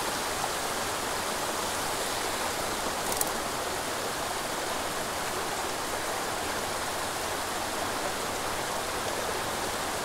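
Steady rushing of a small stream's flowing water, with one brief click about three seconds in.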